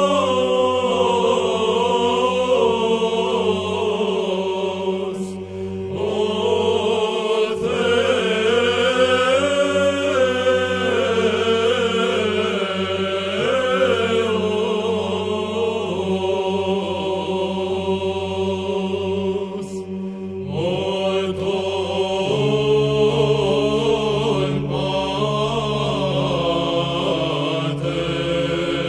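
Byzantine choir chanting a kalophonic heirmos in the plagal fourth mode: an ornate, winding melody over a sustained ison drone held by the lower voices. The drone moves to a new pitch about two-thirds of the way through, and the melody breaks off briefly twice.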